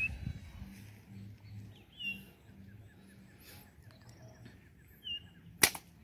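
A few brief bird chirps, then near the end a single sharp snap of a slingshot being shot.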